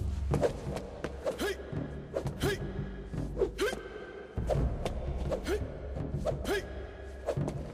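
Film score music with a low pulsing beat, cut through by quick sword swishes and thuds, one or two a second, as a blade is swung through a martial-arts form.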